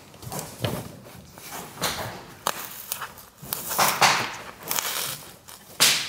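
Handling noise as barbed plastic clips are pressed over underfloor-heating pipe into the insulation board: a run of short scrapes, rustles and crunches with a few sharp clicks, loudest about four seconds in and again just before the end.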